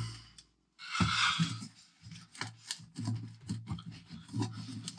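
Light clicking and rubbing of hand-worked parts, as the Truma heater's roof chimney cap is twisted loose. A short rush of noise comes about a second in, then a run of small clicks and scrapes.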